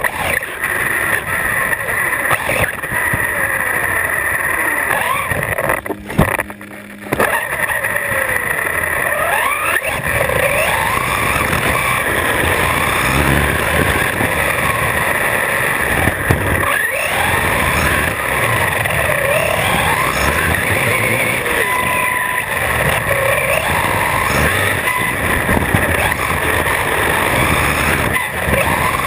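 Electric RC car's brushless motor and drivetrain whining, the pitch rising and falling with the throttle over tyre and road noise, heard from on board the car. Briefly quieter about six seconds in.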